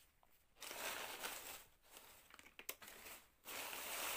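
Plastic bags and paper crinkling in three bursts, with a few small clicks, as a hand rummages through parts wrapped in plastic and newspaper.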